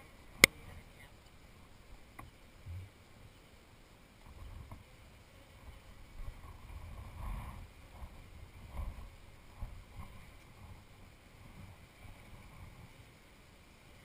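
Wooden beehive frames and hive parts being handled: a sharp knock about half a second in, then scattered low, muffled thumps and rubbing as frames are lifted and set back.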